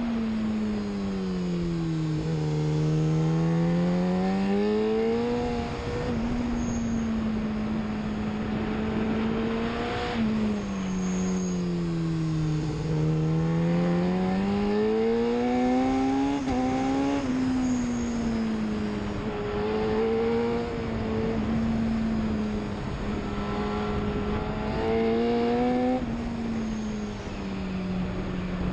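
2011 BMW S1000RR's inline-four engine at racing pace, with wind rushing over the microphone. The engine note twice falls smoothly as the bike slows for a corner, then climbs again under acceleration. It holds a steady pitch through long corners, with a few sudden drops in pitch at gear changes.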